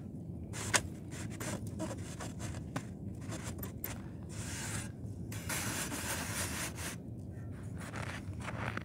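Lumps of charcoal clicking and scraping against the steel sides of a mangal as they are handled and spread by a gloved hand: scattered sharp clicks with rustling scrapes, the longest a little past halfway.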